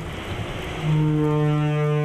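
Rain hiss, then about a second in a loud, steady, low horn-like tone with overtones starts abruptly and holds at one pitch.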